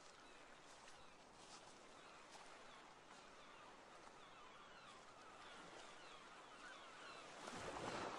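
Near silence: a faint even hiss, a little louder near the end.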